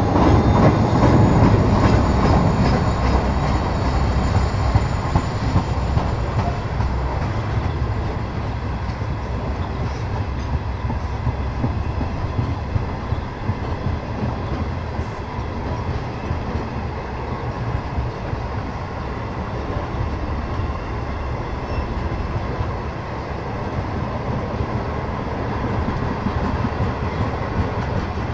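Grain hopper wagons of a freight train rolling past close by, a steady rumble of steel wheels on the rails. It is louder for the first couple of seconds, then holds even.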